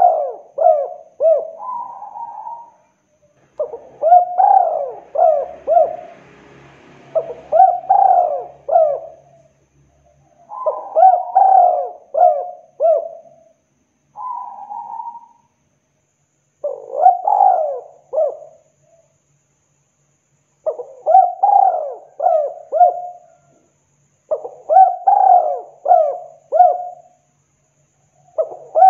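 Spotted dove (tekukur) cooing in repeated phrases. Each phrase is a quick run of four or five short coos, and a new phrase comes every three to four seconds. It is a lure call, used to get a rival dove to call back.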